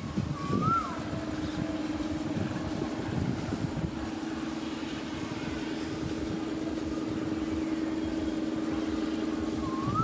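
Diesel locomotive engine working under heavy throttle as the train pulls away: a steady drone with a low, uneven throb. A short rising-and-falling chirp sounds about half a second in and again near the end.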